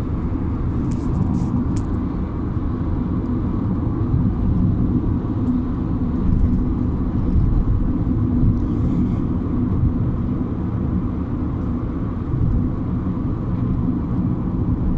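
Steady low rumble of a car driving along a road, heard from inside the cabin: road and engine noise with no sudden events.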